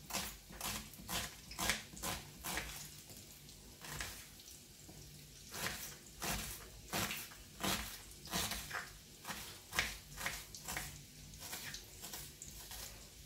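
Kitchen knife dicing red onion on a wooden cutting board: a run of irregular cutting taps, about two or three a second, sparser for a couple of seconds about four seconds in.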